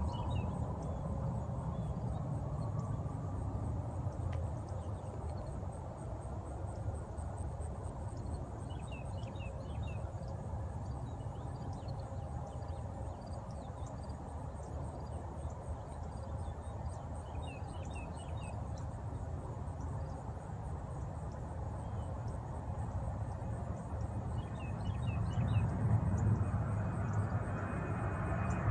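Distant Boeing 737-800's CFM56 turbofans running at takeoff power, a low steady rumble that grows louder near the end as the jet climbs toward overhead. Short clusters of small chirps come a few times, about every eight seconds.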